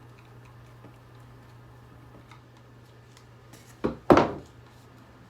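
Handling noises from taking apart a plastic hair dryer: faint clicks, then two sharp knocks a quarter-second apart about four seconds in, the second louder with a short ring, as hard parts or a tool strike the work surface. A low steady hum runs underneath.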